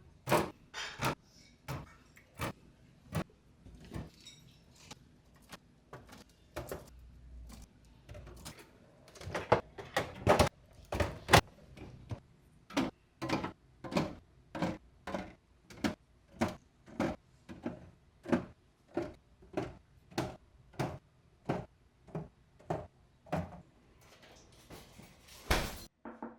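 A long series of short knocks and clacks, about one or two a second, as containers and items are set down and slid into fridge shelves.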